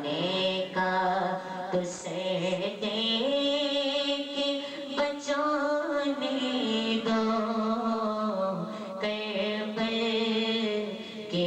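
A young man's unaccompanied devotional singing into a microphone: long, ornamented held notes that slide from pitch to pitch, with short breaths between phrases.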